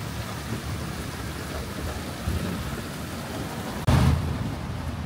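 Steady rushing outdoor noise with a heavy low rumble, and a sudden louder surge about four seconds in that eases back down.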